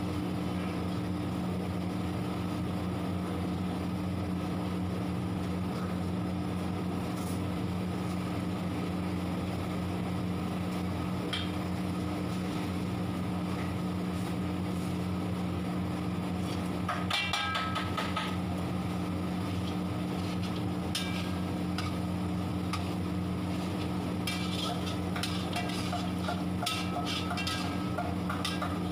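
Steady low mechanical hum of kitchen equipment, with a long metal ladle scraping and clinking against a large steel kadhai of frying onions, in clusters about two-thirds of the way through and again near the end.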